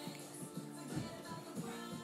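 Recorded music playing, with held notes over a beat.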